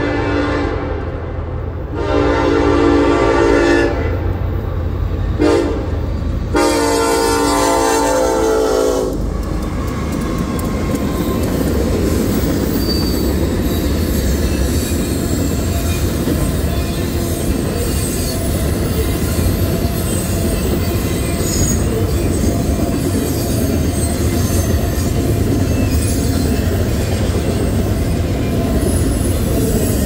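Union Pacific freight train at a grade crossing: the locomotive horn sounds a long blast, a short one and a final long blast in the first nine seconds, over the low rumble of the diesel locomotives. Then the double-stack container cars roll past with a steady clatter of wheels on rail and some wheel squeal.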